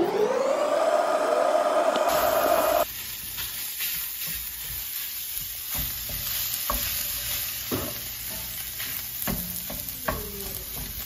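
A rising, engine-like rev that levels off into a steady whine and cuts off abruptly about three seconds in. Then breakfast sausage sizzles in a cast-iron skillet while a spatula breaks it up, with scattered scrapes and taps on the pan.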